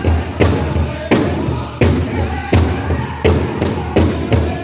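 Powwow drum group playing a jingle dress song: a large hand drum struck in a steady beat while the singers sing over it.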